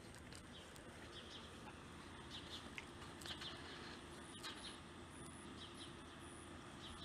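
Faint outdoor ambience with small birds chirping: short high chirps every second or so over a quiet steady hiss.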